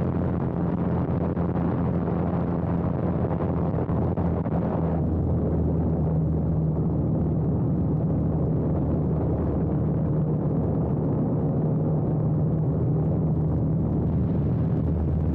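A light biplane's propeller engine running steadily in flight, a low droning hum with air rushing past. About five seconds in the higher rushing drops away, leaving the engine hum stronger.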